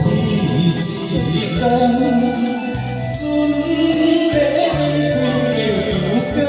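Instrumental backing track of a Taiwanese Hokkien ballad playing its intro: a melody line over held bass notes and a steady beat of light percussion ticks.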